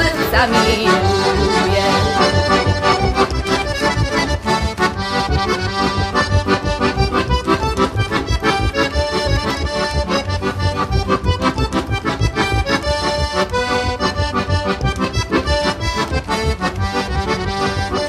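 Heligónka (Slovak diatonic button accordion) playing an instrumental passage of a folk song: a lively melody over a steady, quick pumping bass-and-chord accompaniment.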